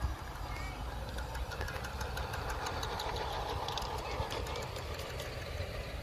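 Large model train running on its track: a low steady rumble with faint, irregular light clicks.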